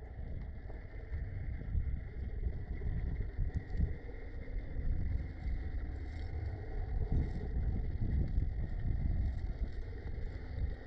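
Underwater ambience: a low, uneven rumble of moving water, with a faint steady high tone and light crackling above it.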